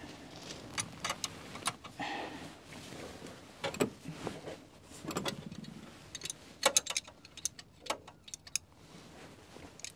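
Irregular small metallic clicks and taps from handling a brake master cylinder and threading its brake pipe union into place.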